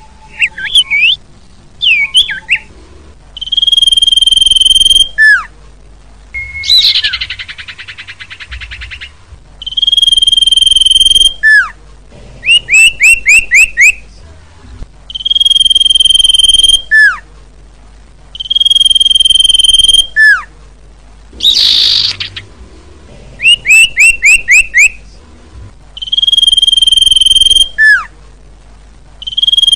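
Common iora (cipoh) song: long, steady, high whistles, each ending in a sharp downward slur. These alternate with runs of five or six quick rising chirps and, twice, a harsh buzzy rattle, repeated in a regular cycle.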